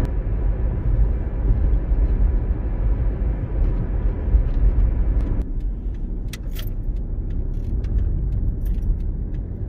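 Car driving on a road, heard from inside the cabin: a steady low rumble of engine and tyre noise. About five and a half seconds in the higher hiss eases off, and a few light clicks follow.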